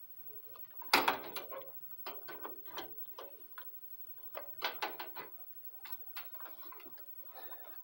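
Clicks and knocks of a GeForce FX 5200 AGP graphics card being pushed and worked into its motherboard slot inside a metal PC case. A loud knock comes about a second in, followed by scattered smaller clicks. The card is seemingly not seating fully in the slot.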